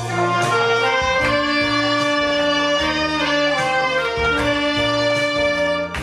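Saxophone playing a slow melody of long held notes over a recorded backing track with bass and strings.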